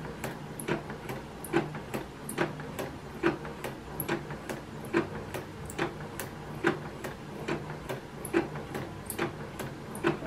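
Home sewing machine running at slow speed on a zigzag stitch, its needle punching through a paper practice sheet: a sharp click a little under every second with fainter clicks between, over a low motor hum.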